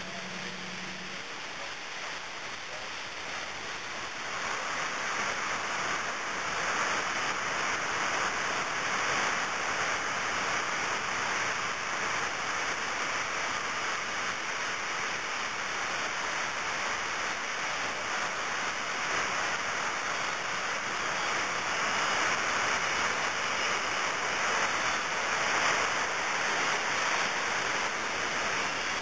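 Coal pouring out of a railcar as a rotary car dumper turns it over: a steady rushing noise that swells about four seconds in and then holds.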